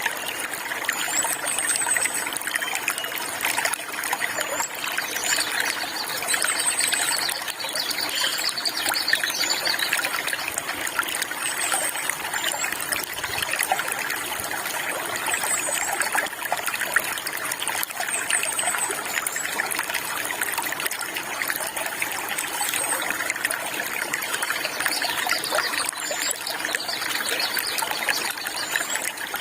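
Stream water trickling and flowing steadily, with short high bird chirps repeating every two to three seconds over it.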